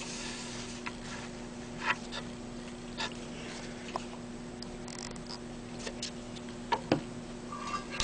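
Faint, scattered light taps and scrapes of a soldering iron tip being pushed along the solder-filled grooves of a SchmartBoard to the chip legs, over a steady low hum.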